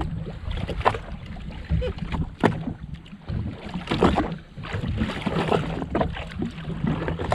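Wind buffeting the microphone and water lapping against a jet ski's hull, with scattered sharp clicks and knocks as a fish is reeled in on a bent rod.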